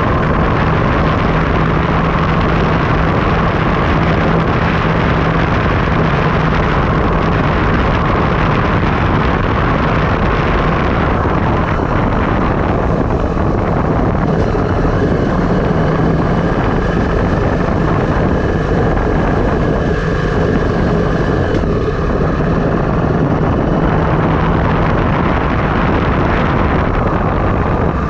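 Loud, steady wind rushing over the action-camera microphone with rumbling road noise during a downhill ride. The hiss eases for a stretch in the middle, then returns.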